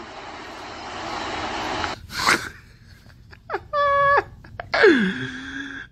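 A man crying: a long wheezing, sobbing breath, then after a pause a short high-pitched wavering cry and a falling whimper near the end.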